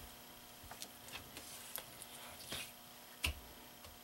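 Faint, scattered small clicks and wet squishes of hands scooping gel-like tire mounting compound (tire soap) off a tire and wheel, with one sharper knock about three seconds in.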